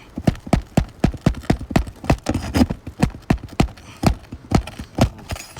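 A rapid run of sharp hammer blows, about three to four strikes a second, as a roofer drives or works nails in roof shingles.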